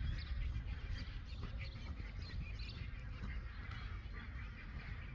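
Birds calling, many short high calls scattered throughout, over a steady low rumble and the soft hoofbeats of a Friesian horse trotting on sand footing.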